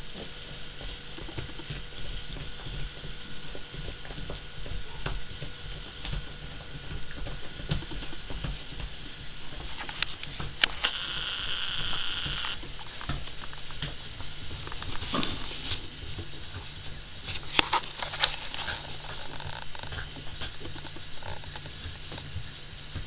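A Cavalier King Charles spaniel gnawing on a deer antler: irregular small clicks and scraping of teeth on the hard antler, over a steady low hum, with a burst of sharper clicks a few seconds before the end.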